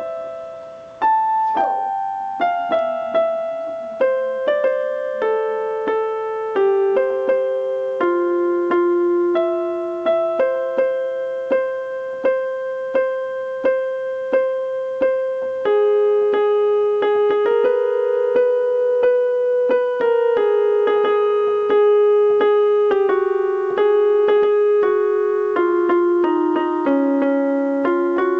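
A slow, gentle piano piece: a melody of single struck notes that ring and fade, about one or two a second, over chords in the middle register. The chords grow fuller and more sustained from about halfway through.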